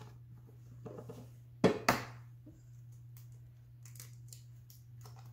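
Eggs being cracked into a stainless steel stand-mixer bowl: two sharp knocks of shell close together about two seconds in, then a few faint ticks as the shell is pulled apart.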